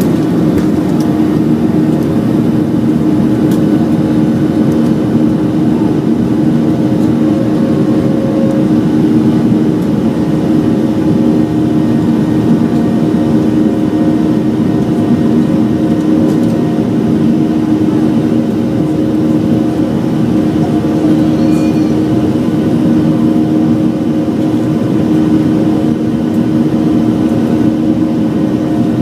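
Boeing 737-700's CFM56-7B turbofan engines running at high takeoff thrust, heard from inside the cabin as a loud, even drone with a steady hum that does not change.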